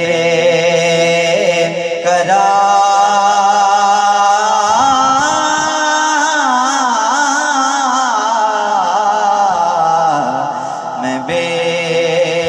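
Solo male voice singing a naat through a microphone, drawing out a long held line with wavering melismatic ornaments. The pitch climbs midway and falls back near the end.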